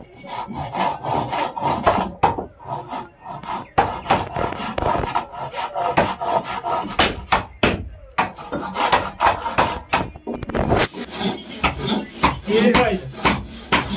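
Hand saws cutting wooden planks: quick back-and-forth strokes, pausing briefly about eight seconds in and then starting again.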